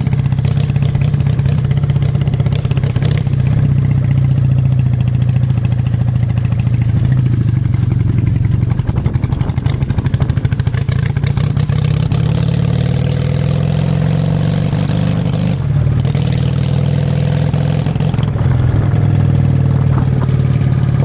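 Loud 400cc motorcycle engine running as the bike is ridden, its note rising around the middle as it accelerates and dropping briefly a few seconds later as a gear is changed.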